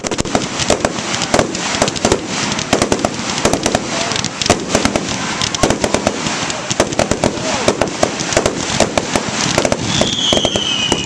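Fireworks finale: a rapid, unbroken barrage of bangs and crackles from many shells bursting at once. A falling whistle comes in near the end.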